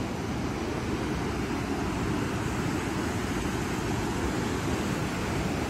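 Steady rush of rough surf breaking on rocks below a cliff, with wind buffeting the microphone.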